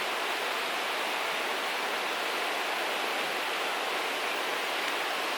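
Steady, even rushing background noise of the outdoors, with no distinct events.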